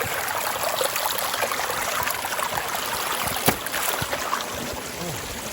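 Small stream running and trickling in a steady rush, with one sharp knock about three and a half seconds in.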